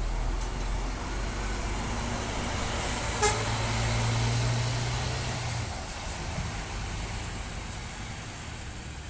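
Double-decker diesel coach pulling away, its engine giving a low drone that swells in the middle and then fades as it moves off. A single very short horn toot sounds about three seconds in.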